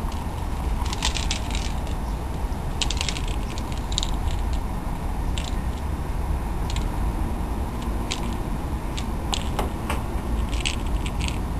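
Short clusters of light clicks and scrapes from a toy mouse being jiggled and dragged on a stone step, over a steady low rumble.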